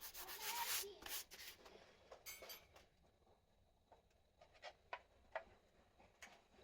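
Rubbing strokes by hand on a surface, as in scuffing or sanding, for about a second and a half, then scattered light ticks and taps.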